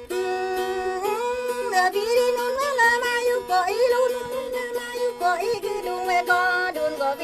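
Traditional T'boli music: a voice sings a wavering, ornamented melody over a plucked-string accompaniment that holds a steady drone.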